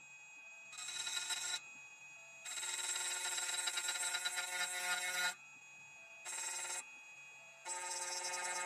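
Tank 2 Pro CNC key-cutting machine running its motors in stop-start runs at the start of a dimple-key cutting cycle. A whine of several steady tones starts and stops four times, the longest run lasting nearly three seconds.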